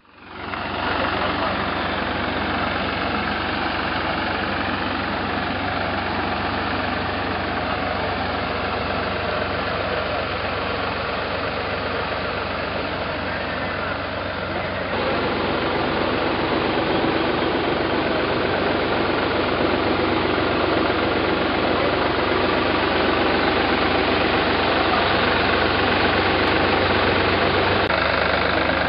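Tractor engine running steadily while working a tractor-operated boom sprayer in spraying. The sound fades in at the start and gets a little louder about halfway through.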